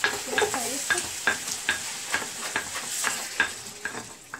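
Pork trotters sizzling as they fry in a wok-shaped metal pan, with a spoon stirring and knocking against the pan about two or three times a second.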